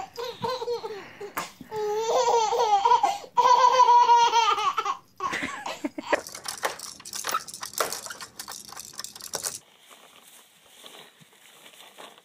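A baby laughing in long, high-pitched peals, strongest in the first five seconds, then in shorter bursts that die down about ten seconds in.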